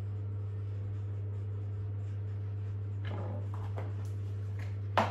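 A steady low hum, with faint rustling from handling small seasoning containers about three seconds in and a sharp click just before the end.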